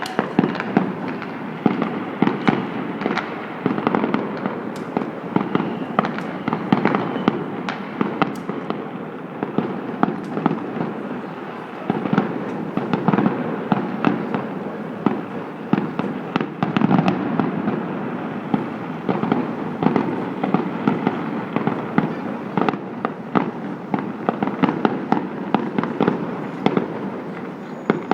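Many fireworks going off at once: a dense, continuous run of overlapping bangs and pops, several a second, over a steady rumbling din.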